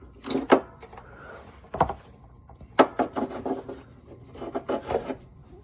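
Metal parts of a 4L60E transmission's servo assembly clicking, knocking and scraping as they are wiggled and pulled apart by hand, in several short clusters.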